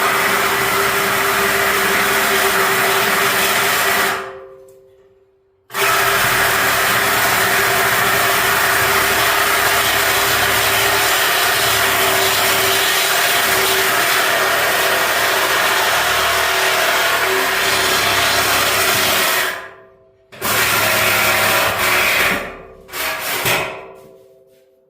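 Handheld power grinder working on scrap steel, a loud steady grind with a constant whine. It is let off twice, spinning down over about a second each time, and then run in a few short bursts near the end.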